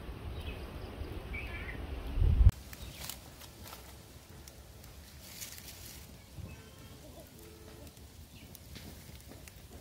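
Outdoor ambience with faint bird chirps. A low rumble on the microphone swells and cuts off abruptly about two and a half seconds in, leaving a quieter background with scattered faint clicks.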